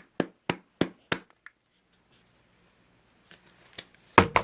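Sharp clicking taps on a plastic slime container, about three a second in the first second, then a quiet stretch and a dense burst of clicks near the end, as the slime is being worked out of its container.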